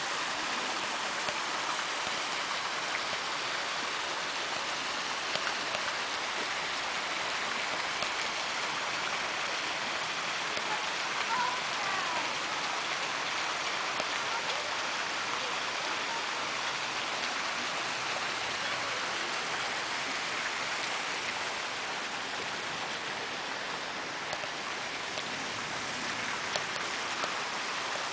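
Steady hiss of glacial meltwater running and trickling off the Pasterze glacier's ice front into the meltwater lake and streams below, a continuous rain-like patter with a few faint ticks.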